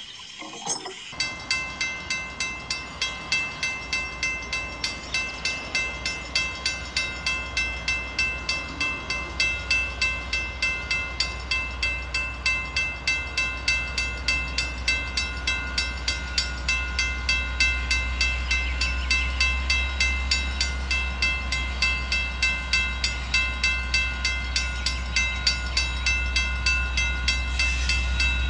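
Level-crossing warning bell ringing in rapid, even strokes, starting about a second in. Under it, the low rumble of an approaching train grows louder toward the end.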